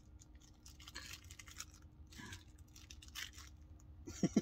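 Faint rustling and crinkling as a baby's plush toy is handled. A man bursts out laughing right at the end.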